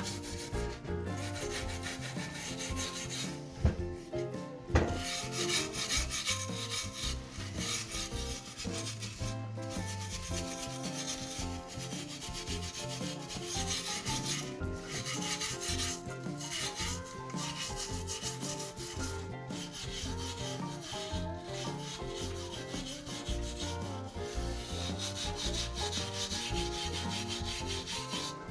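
Sandpaper rubbing back and forth over outboard motor parts in steady repeated strokes, with background music playing underneath.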